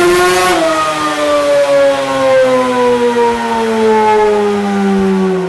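Yamaha Banshee 521cc Supercub twin-cylinder two-stroke engine at high revs, its pitch falling slowly and steadily over several seconds as the revs come down.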